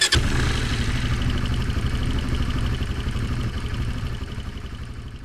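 Boat engine running with a steady, pulsing low rumble that starts suddenly and slowly fades away.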